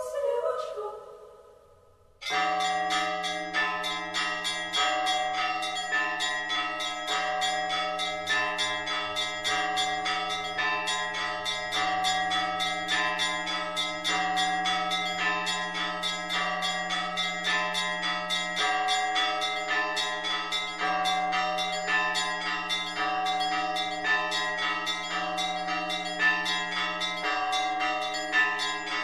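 Bells of many different pitches struck in quick succession in a dense, continuous peal, with a low steady hum beneath. It starts suddenly about two seconds in, after the last notes of singing fade out.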